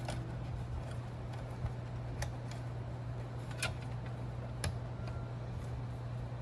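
A few scattered light clicks and taps from hands handling a sheet-metal fireplace blower assembly and its wiring, over a steady low hum.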